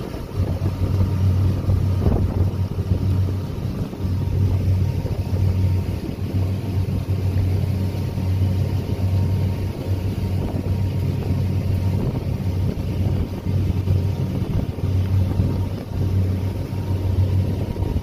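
Small ferry boat's engine running steadily under way, a low hum, with wind on the microphone and water rushing past the hull.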